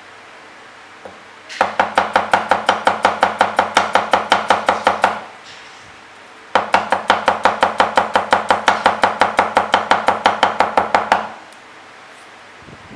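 Chinese chef's knife rapidly slicing garlic cloves into thin slices on a wooden chopping block, the blade knocking the board about six times a second. Two even runs of strokes, each four to five seconds long, with a short pause between them.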